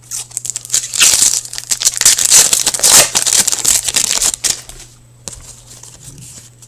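Foil wrapper of a hockey card pack being torn open and crinkled, a dense crackling rustle for about four seconds, then lighter handling rustles.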